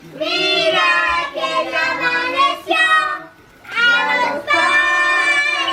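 A young child singing in a high voice, two drawn-out sung phrases with a short break about halfway through.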